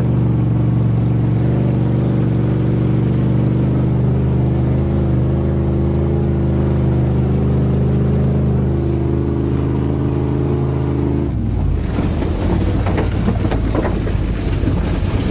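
1988 Chevrolet pickup's engine running steadily on the move, a deep even drone. About eleven seconds in, the note drops away into a rougher rumble with wind buffeting. The driver says the engine has a bad crank.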